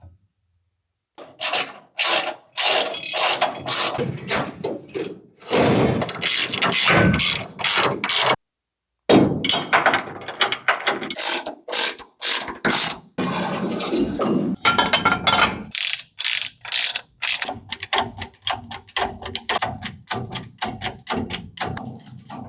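Rapid trains of sharp mechanical clicks and strokes in quick succession, broken into short runs with a brief silent gap about eight seconds in.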